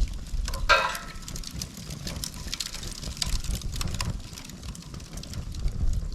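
Split dry bamboo burning in a bundled Swedish torch, crackling with many small sharp pops, with a brief louder crackle and short whistle about a second in. Wind rumbles on the microphone underneath.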